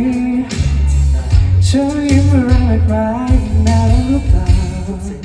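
Live pop song played over a concert sound system during a sound check: heavy bass and drums with guitar, and a male voice singing long held notes, with a break in the singing about half a second in and the voice returning near two seconds.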